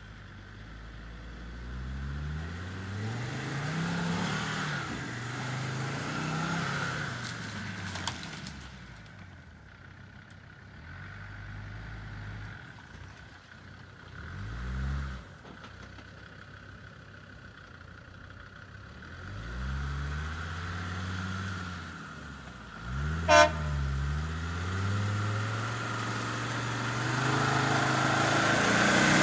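Land Rover Defender Td5's five-cylinder turbodiesel engine revved in several rising-and-falling blips between quieter stretches of idle, with a brief loud sharp sound about three-quarters of the way through. The engine grows steadily louder near the end.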